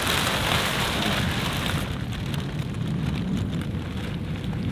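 Crisp nylon spinnaker cloth flapping and crackling in the breeze, over a low wind rumble on the microphone. The crackle is loudest for about the first two seconds, then eases.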